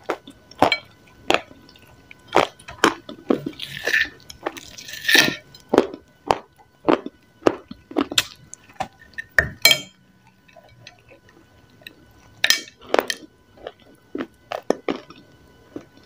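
Close-up biting and chewing of crumbly grey clay-like lumps: irregular crunches, some sharp and loud, with a quieter stretch a little past the middle.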